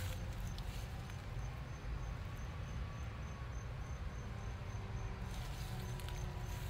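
An insect chirping in a steady, even, high-pitched pulse, over a low rumble on the microphone.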